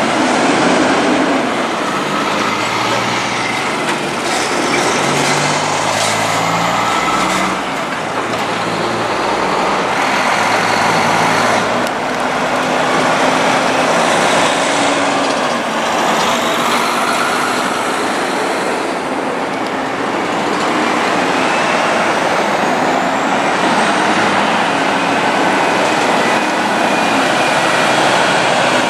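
Heavy diesel trucks (semi-trailers and road trains) passing close by one after another, with engine noise and tyre noise swelling and easing as each goes by.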